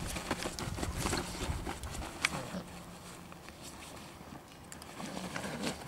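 Dobermann puppies scuffling and play-wrestling on a duvet: rustling fabric and the patter of paws, busiest in the first two seconds or so, with a sharp tick a little past two seconds, then quieter.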